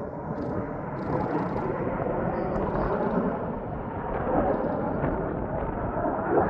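Jet aircraft roaring past: a broad, rushing roar that swells over the first second and then stays loud.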